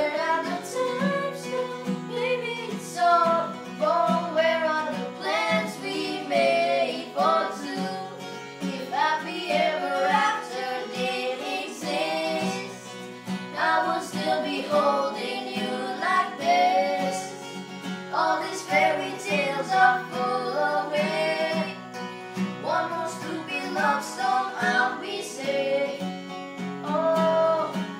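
Music: an acoustic guitar playing along with a voice singing.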